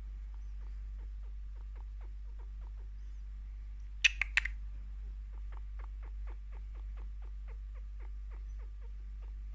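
Pet chinchilla chirping softly: a steady run of short chirps, several a second, quickening past the middle. This is the content, happy chirp it makes while being scratched and given attention. About four seconds in, three much louder sharp sounds cut in briefly.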